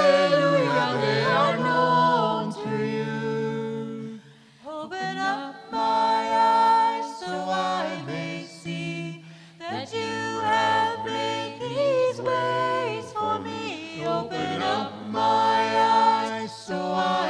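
Four voices, two men and two women, singing a hymn a cappella in harmony, with a brief break about four seconds in.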